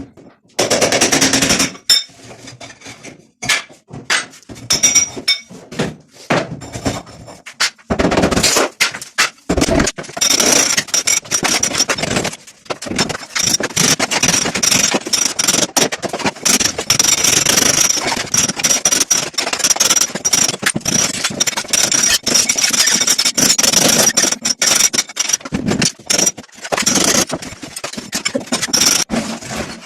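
Hand-tool work in a kitchen repair: repeated knocking and rough scraping, running on almost without a break through the middle part.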